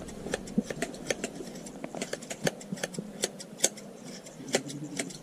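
Hand sheep shears snipping through fleece, a quick irregular series of sharp clicks as the blades close.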